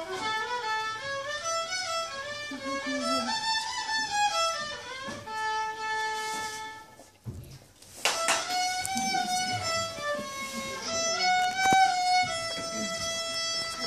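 Solo fiddle tune played by a seven-year-old, single notes moving up and down the scale. About halfway the playing stops for under a second, then starts again sharply, and a light knock comes a few seconds later.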